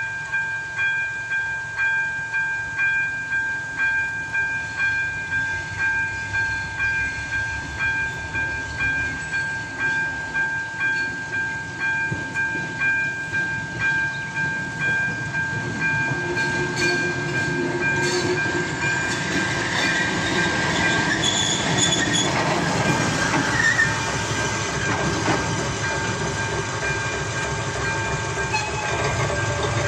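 Level-crossing warning of an AŽD 97 installation: its electronic ZV-02 bell rings a two-tone, evenly pulsing ding a little under twice a second. From about halfway the running of an approaching class 740 diesel shunting locomotive grows louder, and near the end it rolls over the crossing.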